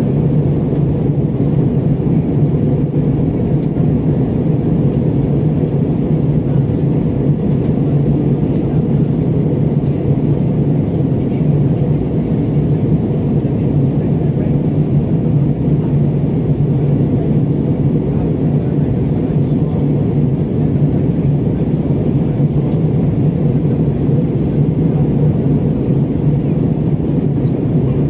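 Steady drone inside the cabin of an Airbus A320 on approach for landing: engine and airflow noise, with a strong low hum.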